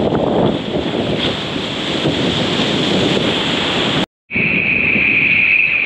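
Surf washing and splashing around a camera held at water level, with wind buffeting the microphone. After a short dropout about four seconds in, a steady high-pitched tone sits over the water noise: water has got into the camera's microphone.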